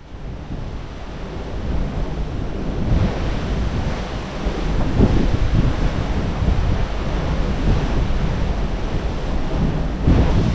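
Wind buffeting the microphone over a steady rush of sea water, with stronger gusts about three, five and ten seconds in.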